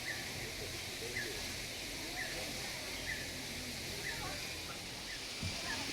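A bird repeating a short high chirp about once a second over steady outdoor hiss, with faint distant voices.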